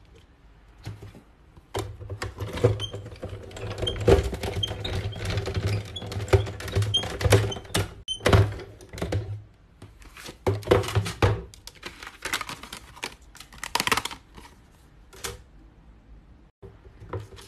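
Alécia Davies A5 manual die-cutting and embossing machine being hand-cranked, its rollers pressing a cutting die through printed paper: a steady low rumble with repeated clicks and knocks. Further clicks and knocks follow as the plates and die are handled after the pass.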